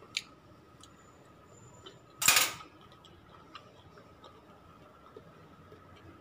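Fork and plastic tub of cut melon being handled: a few light clicks and small ticks, with one short, louder scraping noise about two seconds in, over a faint steady hum.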